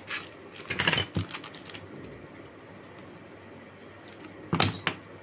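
Scissors cutting a mobile charger's thin wires: two short clusters of sharp clicks and snips, about a second in and again near the end.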